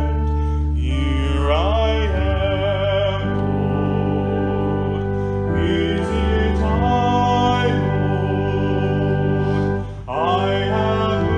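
Slow song: a voice singing with vibrato over held accompaniment chords, sliding up into long notes about a second in and again near the end, with a short break just before.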